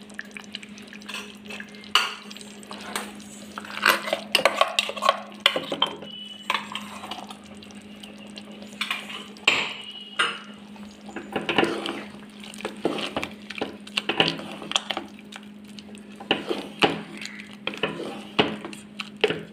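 Metal ladle clinking and scraping against the inside of a pressure cooker in irregular strokes as ground coconut paste is added and stirred into cooked vegetables, over a steady low hum.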